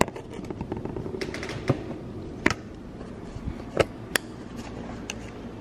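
Irregular light clicks and taps, with a few sharper knocks between about two and four seconds in: handling noise and small household knocks as a camera is carried and moved around a kitchen.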